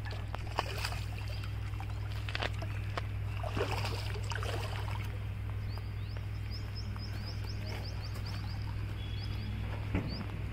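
A hooked catla splashing and thrashing at the water's surface as it is hand-lined in to the bank, over a steady low hum. In the middle a bird gives a quick series of short rising chirps.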